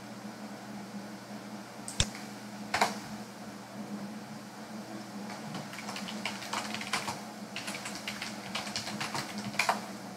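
Computer keyboard typing: a couple of separate sharp clicks in the first few seconds, then a quick run of keystrokes from about halfway through to near the end, over a faint steady hum.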